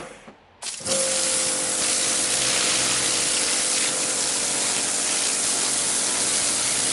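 Karcher K7 pressure washer spraying a high-pressure jet, with the pump running under it. The spray cuts off just after the start and comes back under a second in, then runs steadily.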